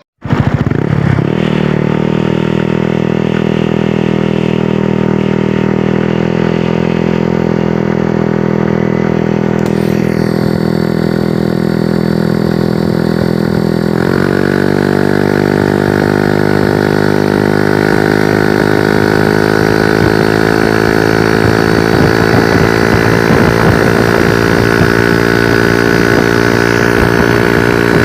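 Yamaha Mio Soulty scooter's single-cylinder four-stroke engine running through an aftermarket JVT pipe V3 exhaust, with a steady exhaust note. About halfway through, the pitch steps up and then creeps slowly higher.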